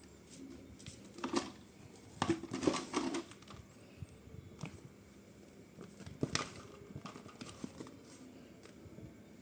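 Handling noises: scattered clicks and knocks of objects being picked up and set down, with a cluster of them about two seconds in and another sharp knock a little past six seconds.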